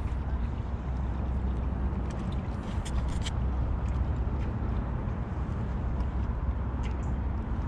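Wind buffeting an action-camera microphone: a steady low rumble, with a few faint clicks about three seconds in.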